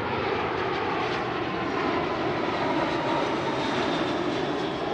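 Jet noise of a British Airways Airbus A320 on landing approach, passing low and loud, with a faint engine whine that drifts slightly down in pitch as it goes by.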